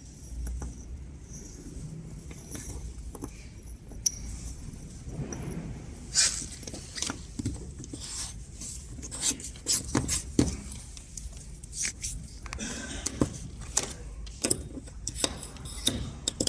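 Small steel injector parts and hand tools clinking, tapping and scraping against each other as the injector cap is fitted. The clicks come irregularly, few at first, then many from about six seconds in.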